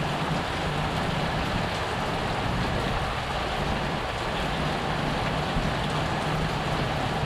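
Heavy rain falling in a steady downpour, with a low steady hum underneath.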